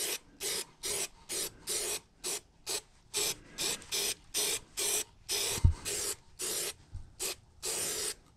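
Rhythmic back-and-forth rubbing of a hand over freshly glued marine carpet, about two and a half strokes a second, pressing the edges down so they don't peel. There is a single low thump about halfway through.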